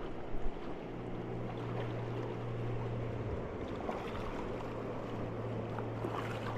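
Steady rush of river water around an inflatable raft, with a low steady hum underneath and a couple of short knocks about half a second in.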